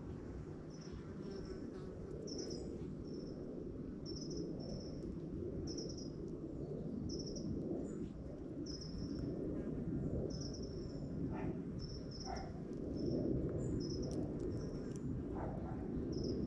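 Outdoor ambience: short high-pitched chirps repeating about once or twice a second over a steady low background rumble, with a few brief fainter calls in the second half.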